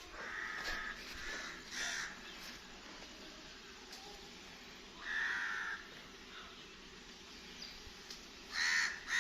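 Birds calling outdoors with harsh, cawing calls: a couple of short calls in the first two seconds, a longer call around five seconds in, and a quick run of calls near the end.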